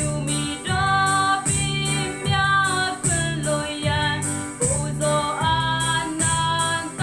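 A woman singing a Burmese Catholic offertory hymn over an accompanying backing track with a steady beat.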